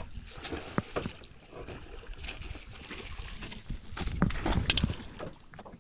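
Scattered knocks and clicks against a small boat, with water sloshing around it.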